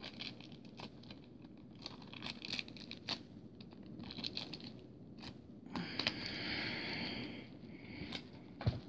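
Model-airplane packaging being handled: crinkling and small clicks and scrapes, a longer rustling or tearing stretch about six seconds in, and a sharp knock near the end.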